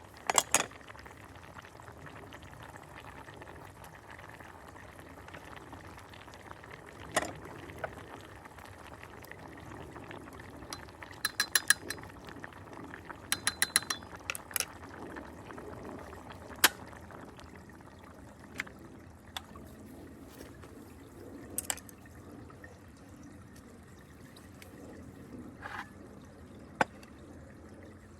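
Liquid being poured and moved about in cookware over a steady low hiss, with scattered sharp clinks of a utensil against a pot or bowl. There are two quick runs of rapid, ringing clinks about 11 and 13 seconds in.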